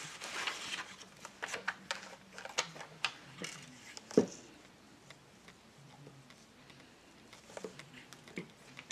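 Handling of paper scraps: light paper rustling and a string of small clicks and taps, with one sharper tap about four seconds in. After that it goes quieter, with a few more taps near the end.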